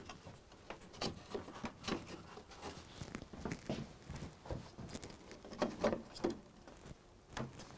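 Light, irregular taps, knocks and scrapes of a curved helix deck board being slid into place between threaded support rods and handled for clamping, with a slightly louder cluster of knocks about six seconds in.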